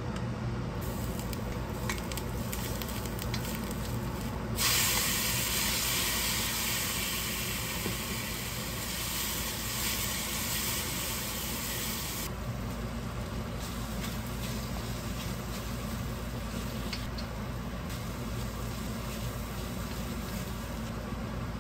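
Stir-fry sizzling in a smoking-hot wok. A sudden loud burst of sizzling starts about five seconds in, as the chicken goes into the hot oil, and settles back to a quieter sizzle after about eight seconds. A wooden spatula scrapes and taps against the wok throughout, over a steady low hum.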